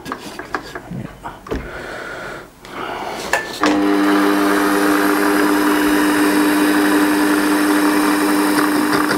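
Small metal lathe: a few clicks and knocks, then about three and a half seconds in the lathe motor starts and runs with a steady hum, spinning the chuck and flywheel blank.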